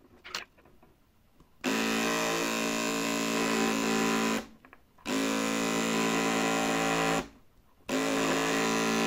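Braun beard trimmer's small electric motor and blade buzzing in three runs of two to three seconds each, switched on and cut off abruptly by its freshly cleaned push switch. The motor holds a steady speed on each run, with no drop in revs.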